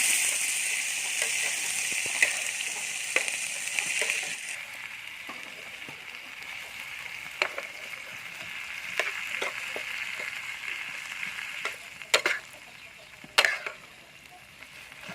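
Food frying in a pan: a steady sizzle that drops noticeably about four and a half seconds in, with scattered clicks and taps and two sharper knocks near the end.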